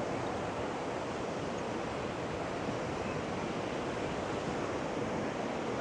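Steady wash of ocean surf on a sandy beach, with wind on the microphone.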